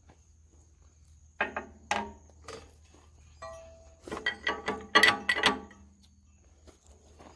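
Metal clinks and knocks from the flywheel and crankshaft fittings of an International Type M 6 hp engine being rocked by hand, some with a brief ring. A few single knocks come first, then a quick run of them about four to six seconds in.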